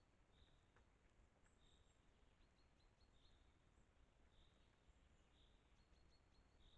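Near silence: faint steady hiss with a faint high bird call repeating every second or so.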